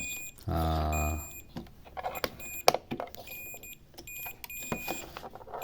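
Multimeter continuity beeper sounding in on-off stretches as the probes touch the phone's power-button pad, a sign that the pad is shorted to ground. A few sharp clicks of the probe tips come in between.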